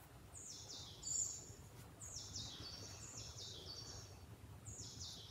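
Faint chirping of a small songbird: short high-pitched phrases of quick falling notes, repeated every half second or so, the loudest about a second in, over a low steady room hum.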